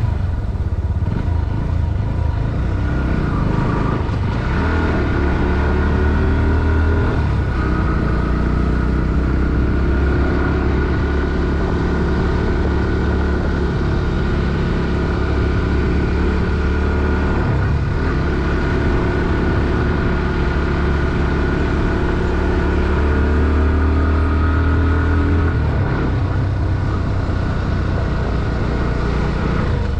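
Bajaj Pulsar NS160's single-cylinder four-stroke engine and exhaust running under load on a climb. The revs climb and drop back sharply several times, as gears change or the throttle is eased.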